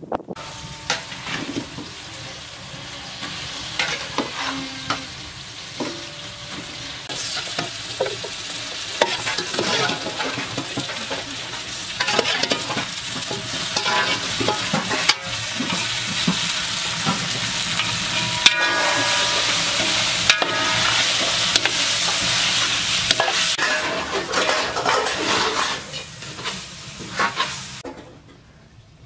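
Meat frying and sizzling in a large aluminium cooking pot, with a metal ladle stirring, clicking and scraping against the pot.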